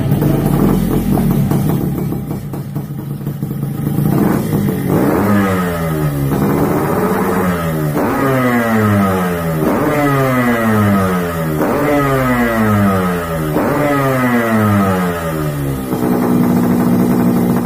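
Yamaha RX King two-stroke single-cylinder motorcycle engine revved over and over: each rev jumps up sharply and then falls away, about every two seconds, from about five seconds in. It settles to a steadier run near the end.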